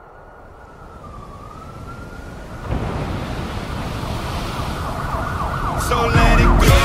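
A thin siren-like wailing tone that dips in pitch and comes back up, then a dense swell with repeated falling glides that grows steadily louder, until music with a heavy beat comes in near the end.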